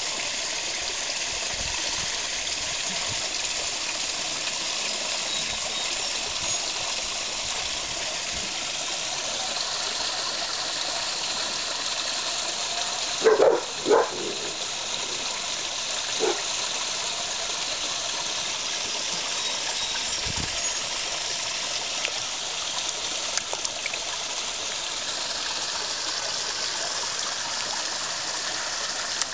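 Steady rush of running water at a garden koi pond. A dog barks three times around the middle.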